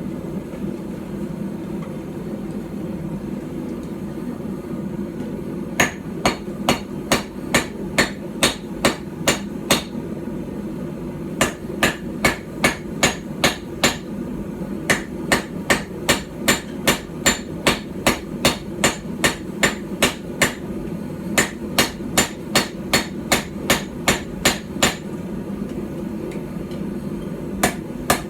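A small hand-forged hammer, about 12 ounces, strikes hot steel on a small stump anvil during knife forging. The blows come in runs of several, roughly two a second, with short pauses between them, starting about six seconds in. A steady low hum runs underneath.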